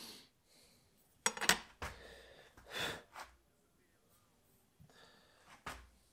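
A steel rule set down on a wooden workbench and board, with a couple of sharp clacks about a second in, then a loud breath through the nose, and another light knock of a tool on the wood near the end.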